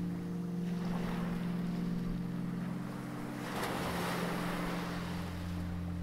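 Gentle sea waves washing on the shore, with one wave swelling and breaking about three and a half seconds in. Under them runs soft background music of long held notes.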